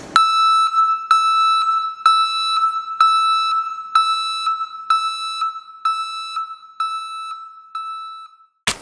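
HBA-010 metal backup (reversing) alarm for 12–80 V DC vehicles beeping at one steady high pitch, about two beeps a second. The beeps fade over the last few seconds and stop, followed by a sharp click.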